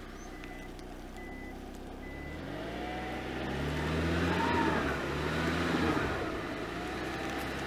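A small SUV's engine revving hard as it tries to drive out of deep bog mud with its wheels spinning. The revs climb about two and a half seconds in and rise and fall with the throttle, with a whine rising and falling along with them. A faint intermittent beeping sounds during the first two seconds.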